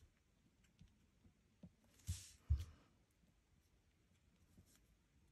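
Faint taps of a Stampin' Blends alcohol-marker tip dotting on cardstock. About two seconds in, a brief papery rustle and two soft knocks as a piece of cardstock is slid across the work mat and set down.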